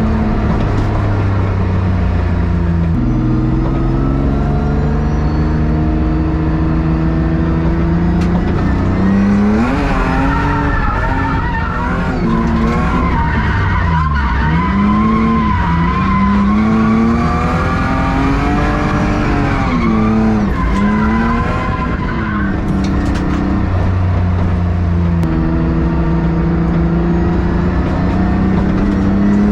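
BMW E36 engine running hard through drifts, the revs rising and falling quickly under throttle through the middle and holding steadier near the start and near the end, with tires squealing. With half of its exhaust gone it sounds really loud.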